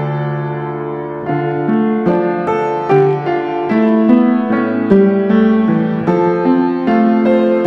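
Background piano music: a melody of separate struck notes, each held and overlapping the next.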